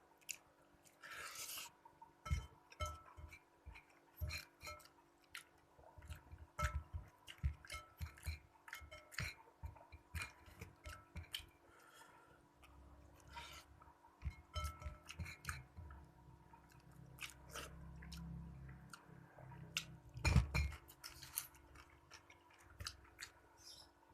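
A person eating close to the microphone: irregular chewing and mouth sounds, with scattered small clicks and clinks, one louder one near the end.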